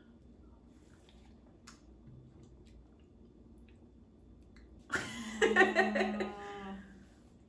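A few faint clicks from a cup being handled during a soda taste, then, about five seconds in, a person's wordless voice lasting about two seconds.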